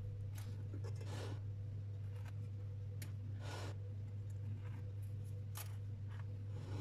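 Thin wooden skewers being pulled out of a baked bread loaf: a few short, scratchy rustles and scrapes, over a steady low hum.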